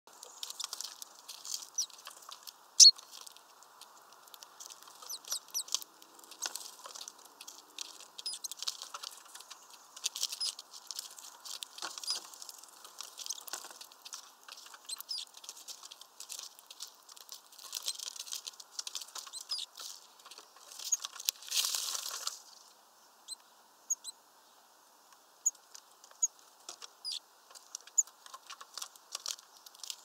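Small finches and tits at a peanut feeder close to the microphone: a busy patter of clicks and scratching from feet and beaks on the perches and the net, with short high chirps and one loud knock about three seconds in. After about 22 seconds it thins to scattered ticks and chirps.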